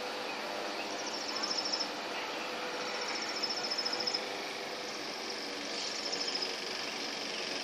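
High, rapid chittering calls in three short bursts from the flock of small animals flying overhead, which the uploader takes for bats, over a steady outdoor hum.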